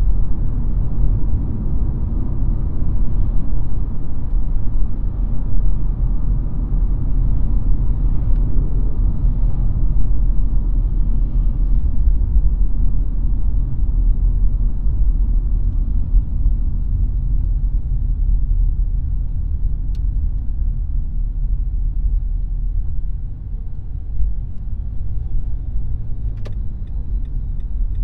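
Car driving on city streets: a steady low rumble of road and engine noise, a little quieter over the last few seconds, with a faint regular ticking starting near the end.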